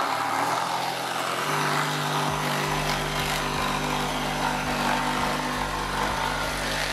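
DeWalt DCS334 20V cordless jigsaw cutting steadily through a softwood board, the blade buzzing as it is pushed along a straight guide board.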